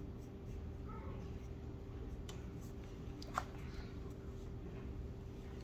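Quiet room with a steady low hum, a pen scratching and tapping faintly on a sketchbook page, and one sharper click about three and a half seconds in as the pad is handled.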